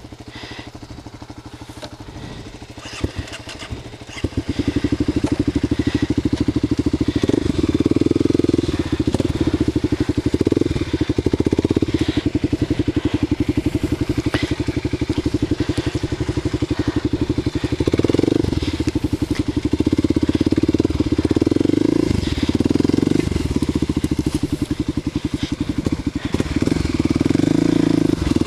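Kawasaki KLX250SF's single-cylinder four-stroke engine, on an aftermarket Muzzy exhaust, ticking over for about four seconds, then pulling at low speed with repeated short blips of throttle as it labours through thick brush. Leaves and branches crackle against the bike.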